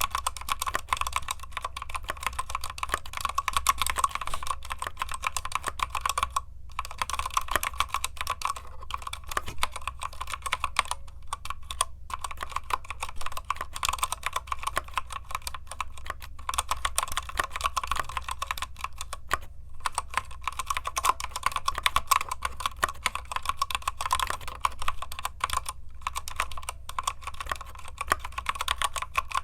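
Keychron K8 Retro mechanical keyboard with red linear switches being typed on quickly and continuously: a dense run of keystroke clacks, broken by short pauses a few times.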